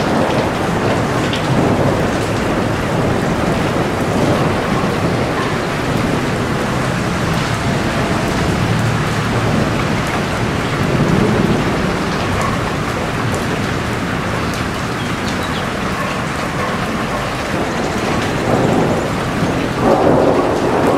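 Heavy rain falling steadily, with a low rumbling underneath that swells now and then. It grows louder and fuller just before the end.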